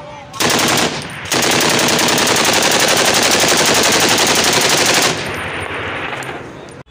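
Belt-fed machine gun firing on full automatic: a short burst about half a second in, then one long burst of nearly four seconds of rapid, even shots. After it stops, a lower rumble of echo carries on for about two seconds.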